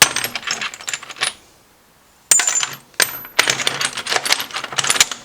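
Loose high-speed steel lathe tool bits clinking and rattling against each other as they are rummaged through in a box, in three bursts with short pauses between.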